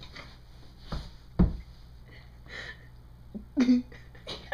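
Two dull knocks about a second apart, then a short vocal sound of about a third of a second near the end.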